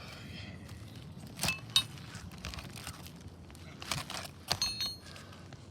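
A few sharp metallic clinks and scrapes in two clusters, about a second and a half in and again around four seconds in, each ringing briefly at a high pitch.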